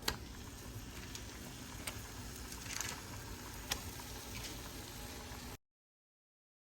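Faint steady sizzling and bubbling of a butter, flour and Velveeta cheese sauce in a pan on the stove, with a few light clicks. It cuts off suddenly near the end.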